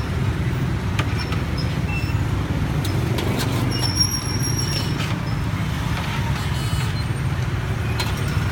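Steady low rumble of street traffic and engines, with a few light clicks scattered through it.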